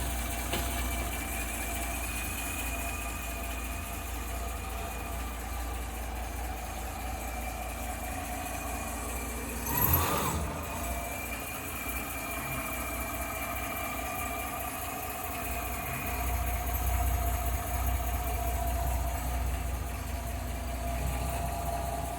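Ford Taunus 2.3 V6 engine idling steadily, freshly rebuilt and running for the first time. There is a short, louder sound about ten seconds in, and the engine runs a little louder for a few seconds near the end.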